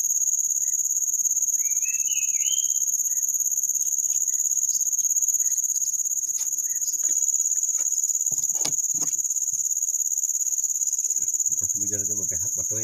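Steady, high-pitched drone of insects in the rainforest, with a bird's short run of rising chirps about two seconds in.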